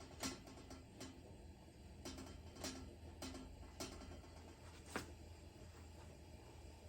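Faint, irregular ticks and clicks over a low steady hum from a Coleman dual-fuel lantern burning with its valve turned all the way up, just after preheating. The sharpest click comes about five seconds in.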